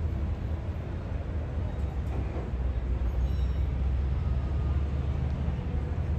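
Low, steady rumble of a large motor yacht's engines as she manoeuvres slowly at docking speed.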